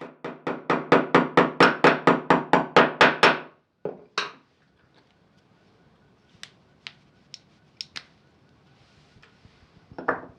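Hammer blows on wood in quick succession, about five a second for some three seconds, then two more strikes and a few light taps: small dowels being driven through a dowel-sizing tool.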